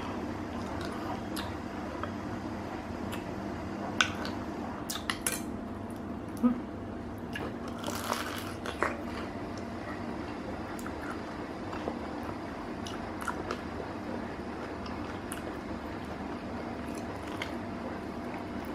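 Someone eating at a table: scattered sharp clicks of utensils and food containers, with chewing and a brief rustle of packaging about eight seconds in. A steady low hum runs underneath.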